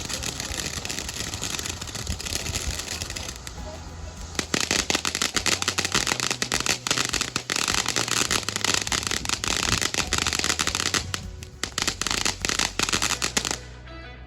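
Consumer fireworks going off: a steady hiss, then dense, rapid crackling from about four seconds in that cuts off suddenly near the end, with background music underneath.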